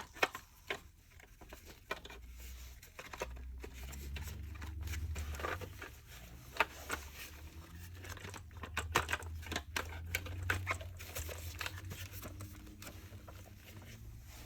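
Irregular clicks and taps of plastic vacuum-cleaner parts being handled, over a low uneven rumble.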